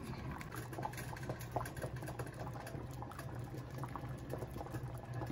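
Thick pumpkin soup simmering in a large pot, bubbling with many small irregular pops as it reduces and thickens on lowered heat.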